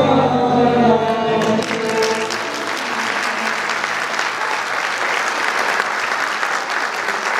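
The final held chord of a Turkish classical song, sung by a woman soloist and choir with an oud ensemble, dies away in the first second or so. The audience breaks into steady applause.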